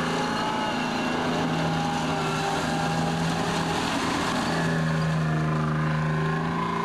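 A tracked armoured vehicle's engine running steadily as the vehicle drives past across rough ground, a constant low drone with higher tones above it.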